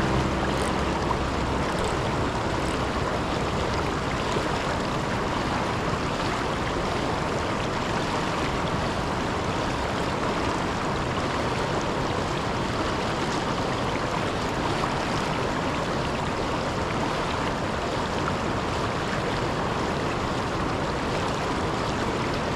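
Steady rush of river water pouring over a waterfall, an even unbroken noise.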